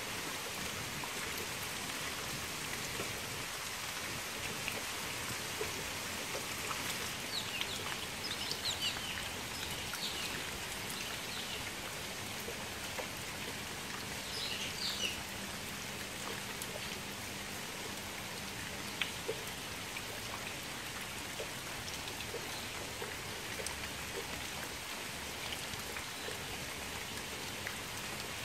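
Steady rain falling into a shallow pool of standing water: a dense, even patter of drops on the water surface.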